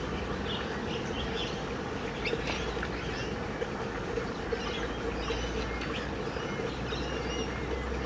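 Small birds chirping off and on over a steady buzzing drone, with a low rumble joining in the second half.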